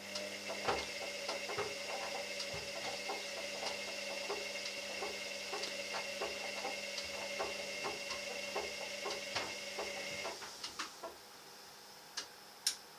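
Candy washer-dryer drum turning on its drying cycle: a steady motor hum with the laundry tumbling and clicking irregularly inside the drum. The drum stops about ten seconds in, leaving a few single clicks.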